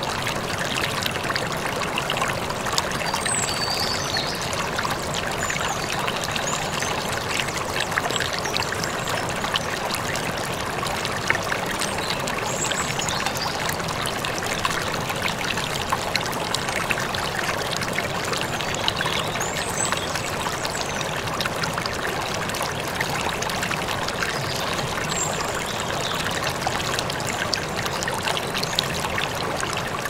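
Stream rushing over rocks, a steady, even rush of water, with now and then a brief, faint, high bird chirp.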